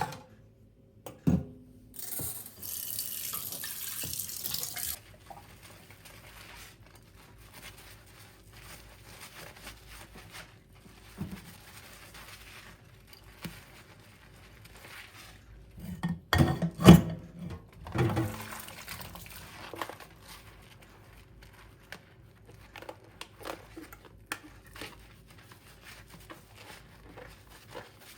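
A kitchen tap running for about three seconds, then small clicks and a cluster of loud knocks a little past halfway, followed by a brief rush of water.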